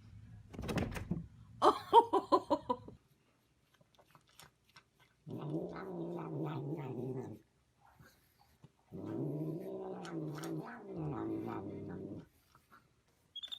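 A domestic cat caterwauling: two long, low, drawn-out yowls with a pause between them, after a short, loud burst of quick pulsed sounds near the start.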